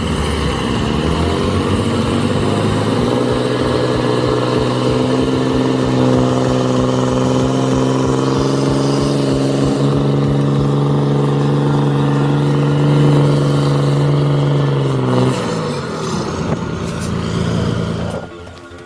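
A large vehicle engine revs up over the first couple of seconds, is held steadily at high revs for about twelve seconds, then drops back a little after fifteen seconds in.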